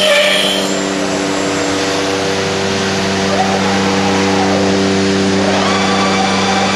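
CNC router running, its slotting cutter (a small saw blade) finishing a cut in cherry with a hissing cutting noise that stops within the first second. The machine then keeps running with a steady, even hum.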